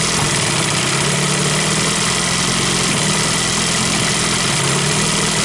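Johnson/Evinrude two-stroke outboard motor idling unevenly and sneezing: it is spitting back into the crankcase because the idle mixture has been screwed too lean.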